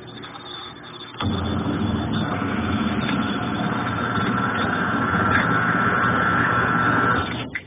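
Consul Ideale 4 kg washing machine's motor switching on about a second in and running with a steady hum and whine, then stopping near the end. The basket turns only weakly and the machine fails to spin dry.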